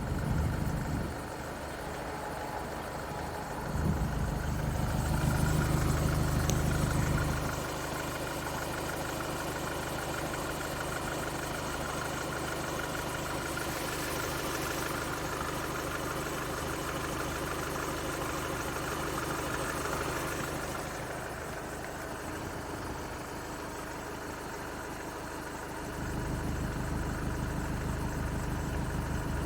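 Skoda Octavia 1.6 TDI four-cylinder diesel engine idling, with a strange noise that the owner relates to the belt. It runs louder for a few seconds about four seconds in, and again near the end.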